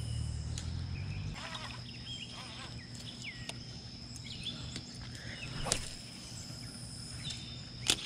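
Birds chirping in short calls over a steady high-pitched whine, with a low rumble that stops about a second in. Two sharp clicks come from the rod and spinning reel being handled, one midway and a louder one near the end.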